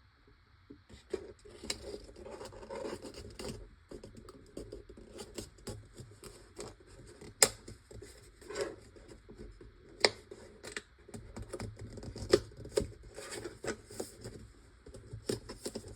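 Paper being pressed and smoothed around a plastic container: rustling and scratching with irregular sharp taps and clicks of hands on paper and plastic.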